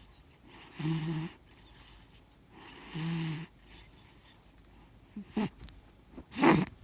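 Cat snoring in its sleep: two long snores about two seconds apart, each a low pitched buzz. Near the end come two shorter, sharper sounds, the second the loudest.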